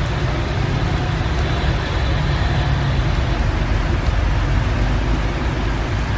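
Heavy rain pouring steadily over a constant low rumble, with a car passing close by through the rain about four seconds in.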